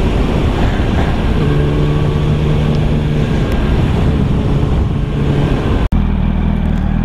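Yamaha YZF-R1 RN19's inline-four engine with Akrapovič exhaust running at steady cruising revs, heavy wind rush over the camera. After a sudden cut near the end it runs at lower revs with less wind.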